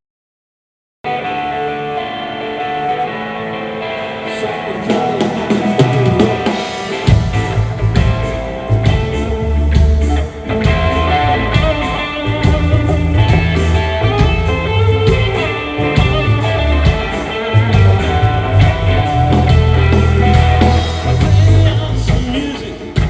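Rock band playing live at a soundcheck. The sound cuts out completely for about the first second, then guitar plays alone, and bass and drums come in heavily about seven seconds in.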